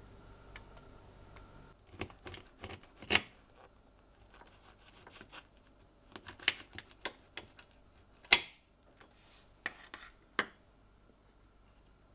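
Crisp caramelised crust of a canelé crackling and crunching as a knife saws through it, a run of sharp crackles with the loudest snap a little after eight seconds in.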